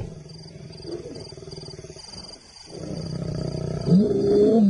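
Male lions growling: a low rumbling growl that fades early on, then builds about halfway through into a louder growl near the end, its pitch sliding up and down.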